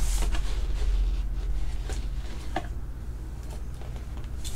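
Rustling and a few light clicks as a PSA-graded card slab in a plastic sleeve is pulled from its wrapping and handled, over a steady low hum.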